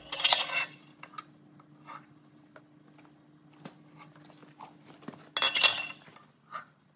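Two short scraping bursts, one at the start and one about five and a half seconds in, with light metallic clinks between: a steel wet cylinder liner with greased rubber seals being handled and set into a bore of a Mercedes OM 460 diesel engine block.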